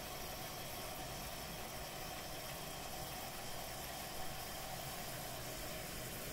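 Liquid nitrogen boiling off steadily in two copper LN2 CPU pots as they are poured down toward full pot.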